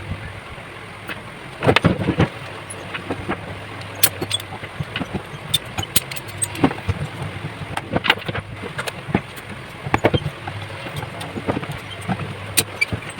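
Irregular clicks and knocks of hard plastic and small parts being handled and fitted, over a faint low steady hum.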